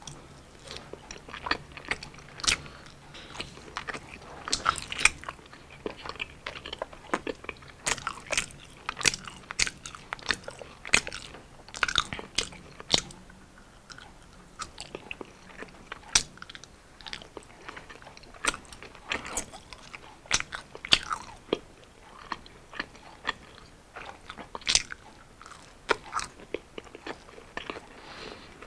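Close-miked mouth sounds of eating crunchy fried street food: irregular crisp crunches and bites with wet chewing between them.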